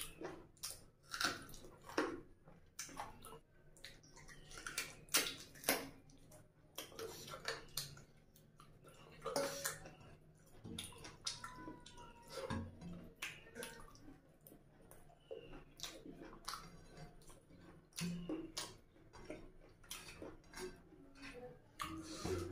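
Hand-eating sounds: fingers mixing rice with curry on a plate and wet chewing and mouth smacks, heard as a steady run of short wet clicks.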